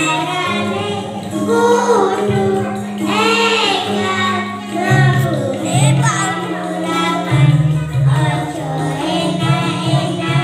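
A young girl singing a Javanese tembang dolanan (children's play song) into a microphone, over an instrumental accompaniment with sustained bass notes.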